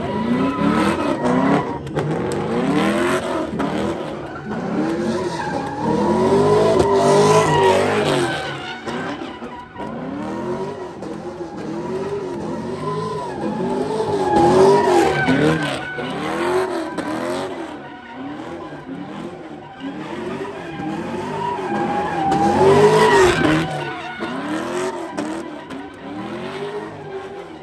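Car engine revving up and down over and over, with tyres squealing as it spins donuts. The rev rises and falls roughly once a second and peaks loudest three times.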